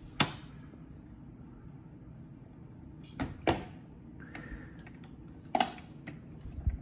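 The automatic record changer of a 1960s Zenith portable record player cycling after its auto control is pressed. A sharp click comes just after the start, then a low steady hum, then mechanism clicks and a short scraping whir through the middle, and a click and low thump near the end as the tonearm comes down to play.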